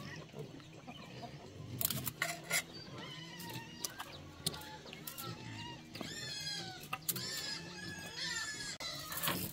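Chickens clucking: a run of short, arched calls, with a few sharp knocks in between.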